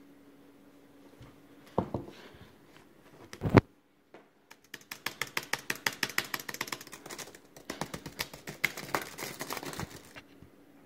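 Two knocks on a desk, the second loud and sharp, then rapid clicking of typing on a MacBook laptop keyboard, about seven keystrokes a second, with a short pause partway through.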